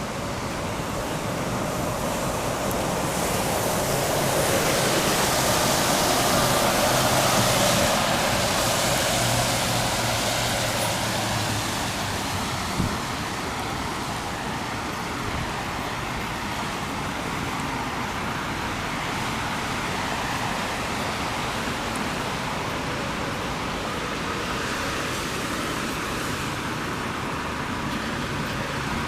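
Road traffic noise: a vehicle passes, loudest about seven seconds in, and then an even wash of tyre and engine noise goes on.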